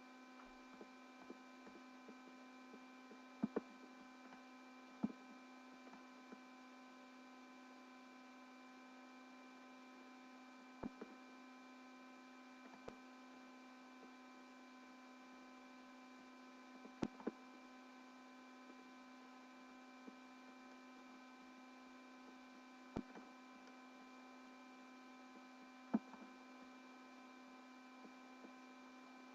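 A faint, steady hum made of several fixed tones, broken by scattered sharp clicks, some in quick pairs, that are the loudest sounds.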